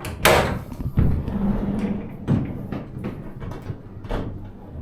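A door being handled: a sharp, loud knock just after the start, another about a second in, then smaller bumps and clicks.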